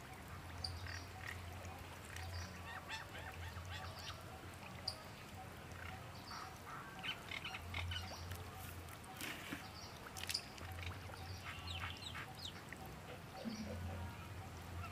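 Bird calls: short pitched calls repeated on and off, over a low steady hum.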